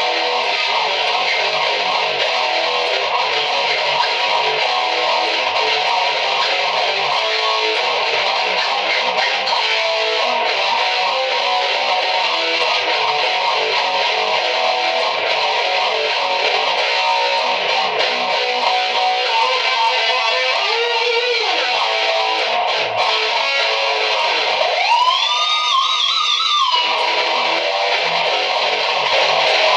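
Dimebag Dixie Rebel electric guitar played loud, with continuous riffing and noise. About 25 seconds in comes a squealing note that bends up and wavers before dropping away.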